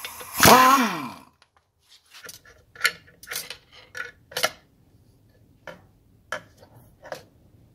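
An air impact wrench briefly whirs on a clutch pressure-plate bolt, its pitch rising then falling, about half a second in. It is followed by a string of irregular light metallic clinks and ticks as the loosened pressure plate is worked off the flywheel with a pry bar.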